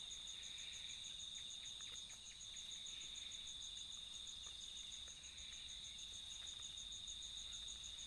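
Crickets and other night insects chirring, faint: a steady high trill with a rapidly pulsing trill above it, and a few faint light ticks.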